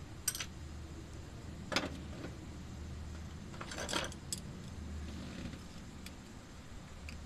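Light metallic clicks and clinks from handling a stripped worm-drive hose clamp: a few single clicks, with a small cluster of them midway.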